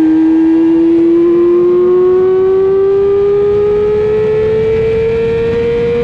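Middleweight supersport racing motorcycle engine heard from on board, held in one gear and pulling hard out of a corner onto the straight, its note rising slowly and steadily, with wind rushing past.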